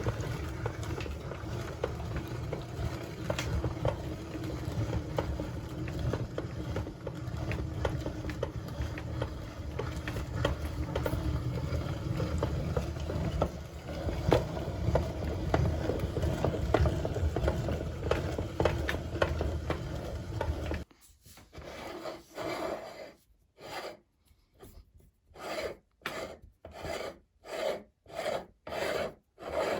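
Meat grinder crushing crunchy ice cream: a continuous rasping grind full of small crackles. About two-thirds of the way through it stops and gives way to short, separate rasping strokes about once a second.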